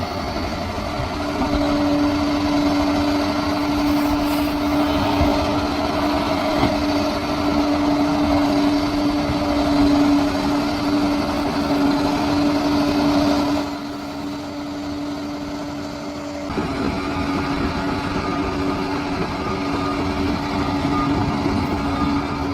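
Bulldozer's diesel engine running steadily with a constant pitched tone over its rumble; it drops in level for about three seconds a little past the middle, then comes back.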